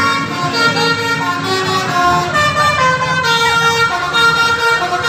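Bus telolet horn, a multi-note musical air horn, playing a tune of held notes that jump from pitch to pitch in steps.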